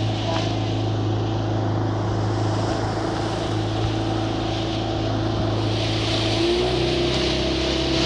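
Boat engine running steadily, with a slight step up in pitch about six and a half seconds in, over a steady hiss.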